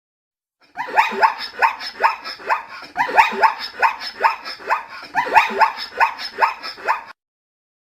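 Zebra calling: a run of high, yelping barks, about three a second, in three bouts, cutting off a little after seven seconds in.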